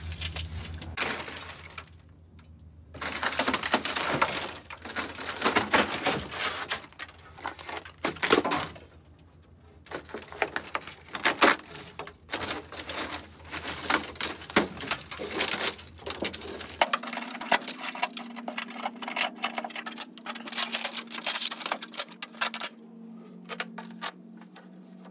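Rotted interior trim panels and headliner of a rusted 1965 VW Beetle body being torn and pulled out by hand, with dense, irregular crackling, crunching and snapping of brittle material and debris. It pauses briefly twice.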